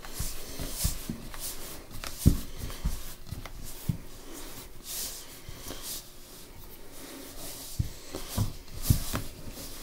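Hands squeezing and kneading a stiff, dry dough in a mixing bowl: irregular soft squishing and rubbing, with occasional short low knocks, the loudest about two seconds in and a few more near the end.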